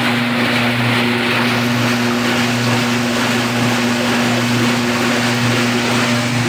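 Old Brastemp Luxo Plus automatic washing machine agitating: its motor hums steadily under an even rushing noise.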